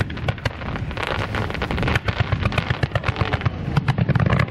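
Fireworks display: a rapid run of sharp pops and bangs over a low rumble, coming thicker and faster toward the end.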